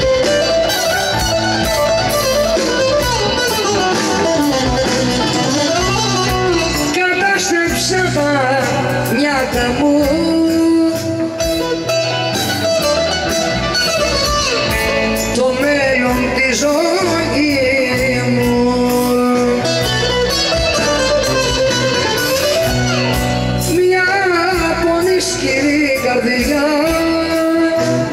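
Greek popular band playing live through a PA: bouzouki and guitars leading a melody over bass, keyboards and drums.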